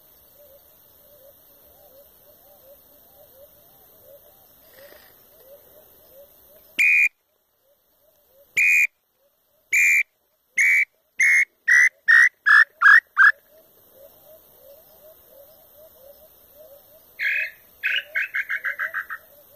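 Wooden inhambu (nambu pé-roxo) call whistle blown in imitation of the tinamou's song: clear whistled notes, a few spaced ones that then speed up into a quick series falling slightly in pitch. A second, faster falling run comes near the end. Faint steady chirping of frogs or insects sits underneath.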